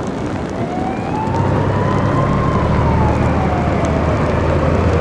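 An emergency-vehicle siren wailing in one slow rise and fall of pitch, over a steady rushing noise, with a low engine rumble that strengthens about a second in.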